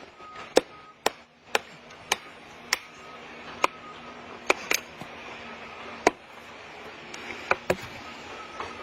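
Axe striking wood again and again, about eleven sharp chops at an uneven pace, some in quick pairs.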